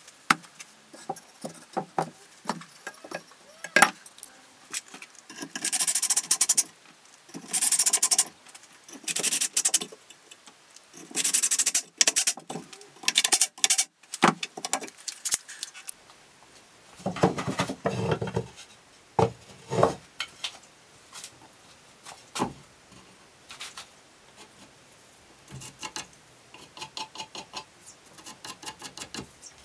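Cordless drill driving screws into a wooden frame in a series of short bursts, each under a second, most of them in the first half. Between the bursts come clicks, knocks and clatter of screws, clamps and wood being handled on the workbench.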